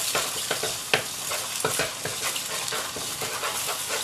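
Eggs sizzling in a hot pan as they are stirred and scrambled. The utensil clicks and scrapes against the pan many times.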